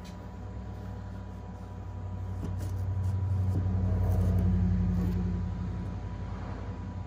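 A low rumble with a steady hum swells over a few seconds, peaks around the middle and fades again. Faint scrapes and taps come from a knife blade working along the glued seam of a cardboard box.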